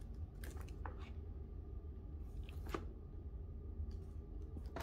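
Faint handling sounds: a few light clicks and rustles as a desk calendar set in a clear plastic case is handled, over a low steady hum.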